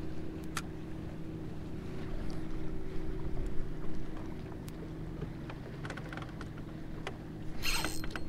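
Steady low hum and water lapping at the boat's hull, with scattered light clicks. About seven and a half seconds in, the rod is set on a bass and the spinning reel's drag starts to buzz as the fish pulls line.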